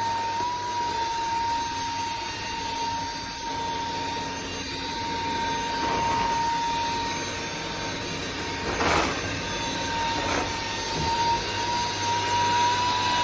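Sulean X8 cordless stick vacuum running, a steady high motor whine over a rush of air, with a few short swishes of louder noise near the middle.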